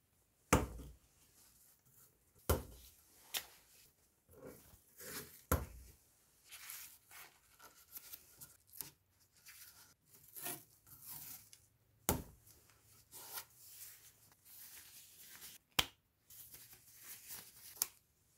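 Masking tape being pulled off the roll and torn, with paper towel rustling as it is wrapped and taped around a wooden block. The handling is broken by several sharp, short sounds.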